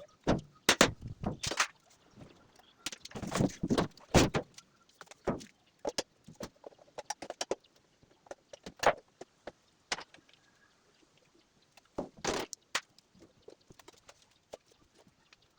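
Irregular clatter of knocks, clicks and scrapes from parts of a Brastemp washing machine being handled and taken apart. It comes in clusters, busiest in the first few seconds and again briefly near the three-quarter mark.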